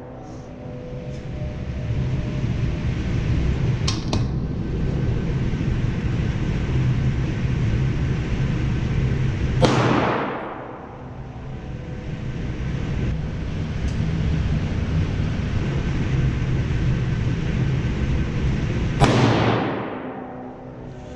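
Two falling whooshes, about ten seconds apart, each sweeping down from high to low over about a second. They play over a steady low rumble, with a couple of faint sharp clicks.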